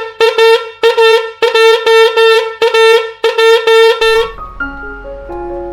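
Homemade horn blown in a rapid run of short toots at one steady pitch, about four or five a second. About four seconds in the toots stop and a short run of stepping notes begins, the start of background music.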